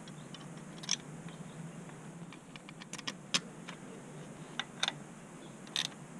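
Scattered light metal clicks and taps as the bolts of a car engine's thermostat housing are threaded in and snugged with a small wrench, a few ticks at a time with short pauses between.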